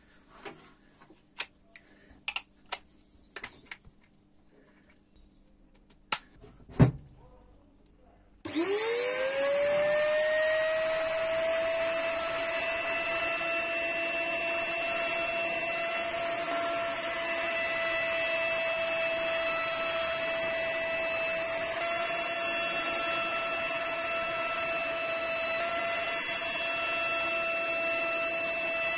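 A few light clicks and a loud knock as the router is readied, then a table-mounted router starts about eight seconds in, its whine rising quickly to a steady high pitch. It keeps running steadily while a bearing-guided bit shapes the edge of a sweet-chestnut board.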